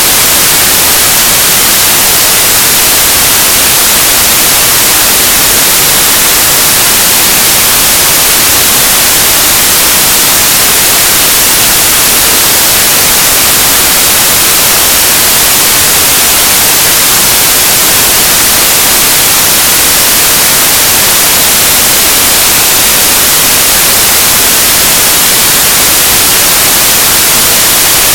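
Loud, steady hiss of electronic static, even and unchanging, brightest in the high end.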